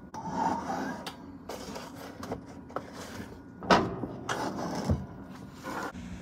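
Toaster oven door opened and a muffin pan lifted out with an oven mitt: rustling, clatter and knocks, with one sharp knock a little past halfway. A steady low hum runs underneath.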